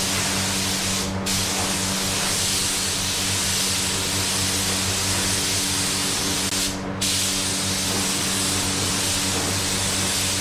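Iwata WS400 spray gun hissing steadily as it sprays clear coat, with the trigger let go briefly twice between passes.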